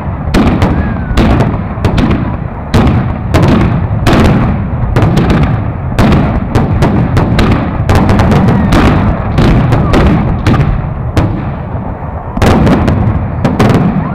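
Aerial firework shells bursting overhead in quick succession: loud bangs about every half second to second, with a low rumble between them. A brief lull comes about eleven seconds in, then another cluster of bangs.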